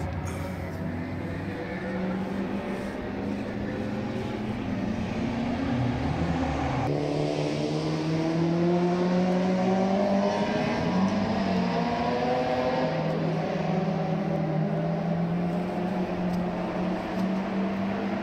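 Racing car engines on a circuit, their notes rising and falling as the cars accelerate and pass; a different engine note takes over about seven seconds in.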